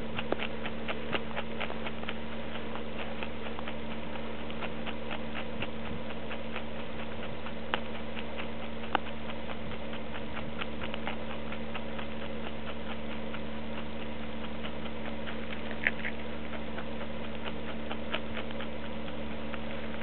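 Arctic hare chewing food taken from a hand: a quick run of small, crisp clicks, several a second, over a steady low hum.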